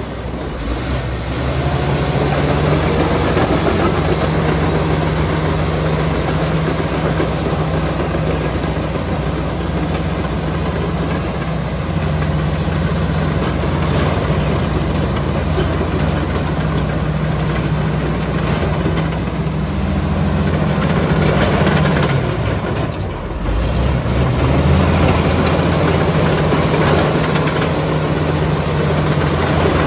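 Komatsu D85ESS-2 bulldozer's diesel engine running steadily. Its pitch drops briefly a little past twenty seconds in, then comes back up.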